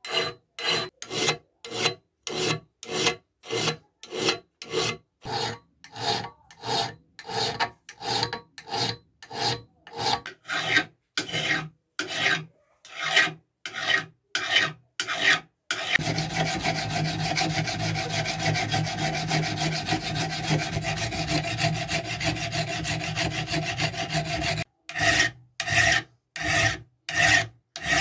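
Hand file rasping across the steel of an old meat cleaver's blade while the edge is being shaped, in separate strokes about two a second. For about nine seconds in the middle the rasping runs on without a break, and separate strokes come back near the end.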